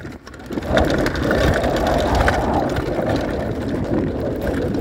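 Downhill mountain bike rolling fast over a grassy dirt trail: a steady rush of wind and tyre noise that builds about a second in, with small rattles from the bike.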